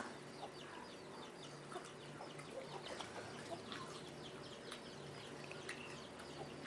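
Faint birds chirping in the background, many short falling chirps, with a few soft clicks and a low hum that comes and goes.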